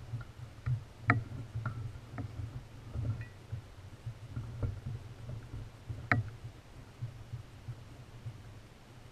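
Enduro mountain bike rolling slowly down a loose gravel track: a steady low rumble with scattered clicks and rattles from the bike and stones, the two sharpest about a second in and about six seconds in.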